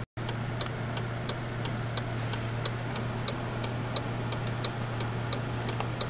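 Steady low hum with a faint, regular tick about every two-thirds of a second, starting just after a moment of dead silence.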